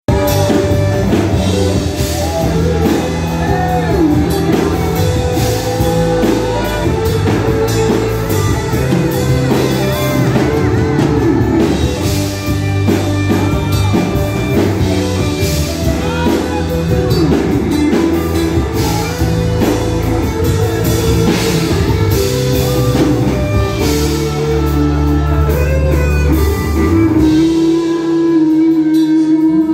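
Live gospel worship music: a youth choir singing with a band of drum kit and guitar. Near the end the bass and drums drop out under one held note.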